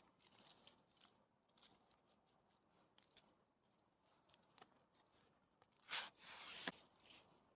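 Near silence with faint scattered clicks, and a brief crunching rustle about six seconds in.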